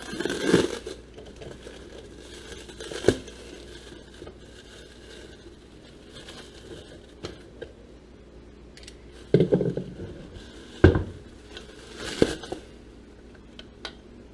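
Packing material rustling and crinkling as it is handled and pulled from a shipping box, with a few scattered sharp knocks, the loudest about eleven seconds in.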